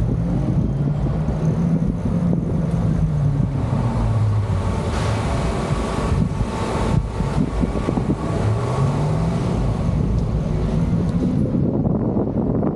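A road vehicle in motion: steady engine and road rumble with a low hum that slowly rises and falls in pitch as it speeds up and slows down.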